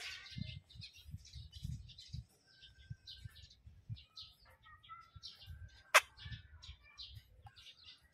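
Small birds chirping and twittering throughout, with a few short whistled notes. A single sharp click about six seconds in.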